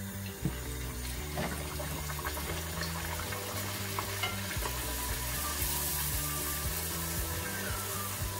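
A puri deep-frying in hot oil with a steady sizzle, louder in the middle. A wire-mesh skimmer presses it under the oil, with a few light ticks against the pan.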